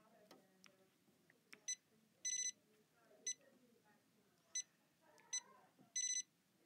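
Janome 500E embroidery machine's touchscreen beeping as its keys are pressed: six clear electronic beeps, four short blips and two held about a third of a second each, the last near the end.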